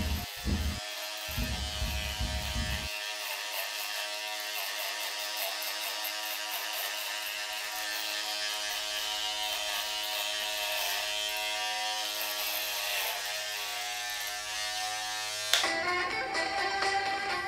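Background music of sustained held notes, with a few low pulses in the first few seconds. Near the end it changes abruptly to a brighter, busier passage.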